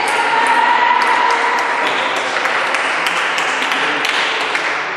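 Table tennis ball clicks over a dense din of clapping and raised voices in a sports hall. The din stops abruptly at the end.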